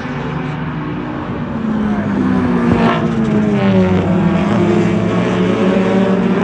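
Several race-car engines running at once on a speedway, their pitches rising and falling as the cars accelerate and lift off, getting louder about two seconds in.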